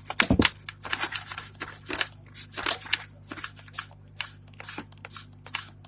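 Quick, irregular scrubbing strokes on a motherboard being cleaned, three or four a second, over a faint steady low hum.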